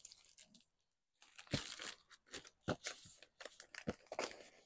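Paper sewing patterns and their envelopes being handled and shuffled in a box: irregular rustling and crinkling of paper, starting after a short pause about a second in.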